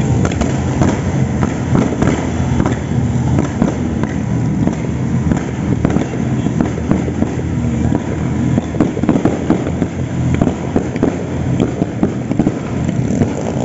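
Busy road traffic of motorcycles, scooters and cars passing close by: a dense, steady engine and tyre rumble with constant crackling through it.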